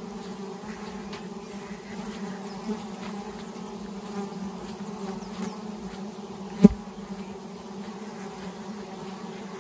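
Steady low buzz of flying insects' wings, with one short sharp knock about two thirds of the way through.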